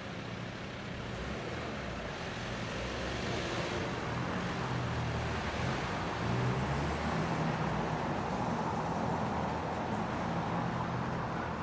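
City street traffic: steady tyre and engine noise of passing cars, with a low engine hum that swells in the middle as a vehicle passes close, then eases off.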